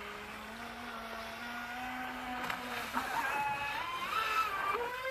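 Electric RC jet boat (Streamline Thrasher V2 on a 6S LiPo) whining across the water. The pitch is steady and creeps up slowly, then about three seconds in it jumps higher and wavers up and down with the throttle.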